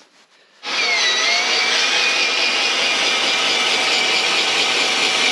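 Cordless drill starting up about half a second in and running steadily with its bit pressed into an OSB board, its motor pitch dipping slightly as it takes the load and then holding.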